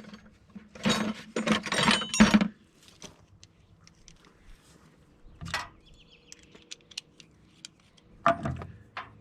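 Small metal parts and hand tools clinking and rattling while hose clamps and an air-line fitting are handled and loosened. A loud clatter in the first two and a half seconds, then scattered light clicks, and another clatter near the end.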